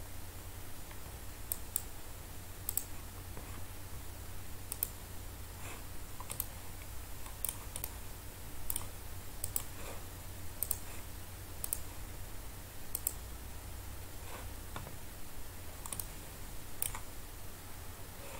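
Computer mouse clicking at irregular intervals, short sharp clicks, many in close pairs, over a steady low hum.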